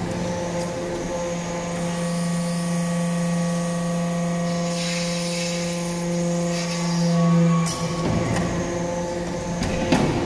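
Hydraulic metal-chip briquetting press running: its hydraulic pump gives a steady hum. A hiss rises in the middle, the hum breaks off about eight seconds in, and a sharp clunk comes near the end.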